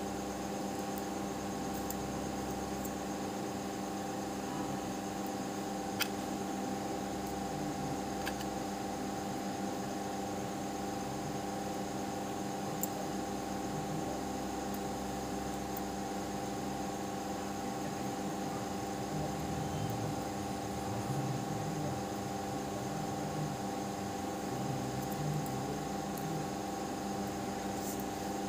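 Steady motor hum with constant hiss, broken by a few faint clicks.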